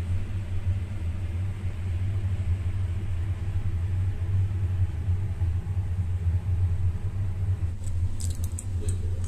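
A steady low rumble runs underneath throughout. Near the end comes a crisp crackling of foil muffin liners being handled.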